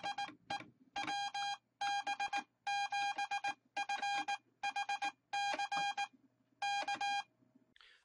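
Morse code keyed by hand on the paddles of a Heathkit electronic keyer: its sidetone sounds a steady beeping tone in quick dots and dashes, grouped into characters with short gaps between them.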